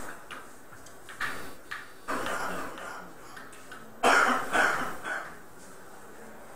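A person coughing several times, with the loudest coughs, a pair, about four seconds in.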